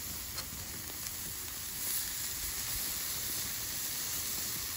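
New York strip steaks sizzling on a grill grate over a charcoal fire: a steady hiss with a couple of faint ticks in the first second or so.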